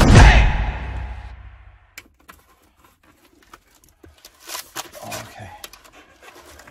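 Intro music fading out over about the first second and a half, then a cardboard box and its plastic packaging being handled: scattered faint rustles and clicks as the flaps are opened.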